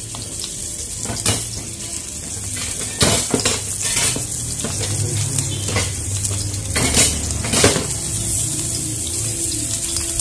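Metal utensils and pans clattering in a busy stall kitchen, with about eight sharp knocks spread through, the loudest a few seconds in and again about seven seconds in, over a steady background hiss.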